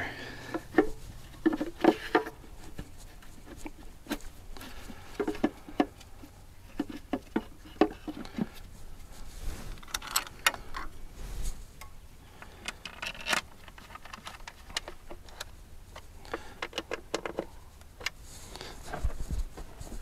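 Valve cover being refitted on a Doosan D34 diesel engine: irregular, scattered clicks, taps and light rattles of the cover and parts being handled and set in place.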